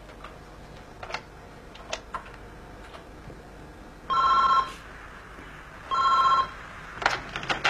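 Office desk telephone ringing twice with an electronic two-tone ring, each ring about half a second long and the two about two seconds apart.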